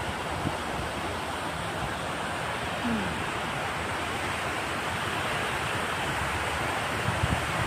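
Water pouring over a low river weir: a steady, unbroken rushing.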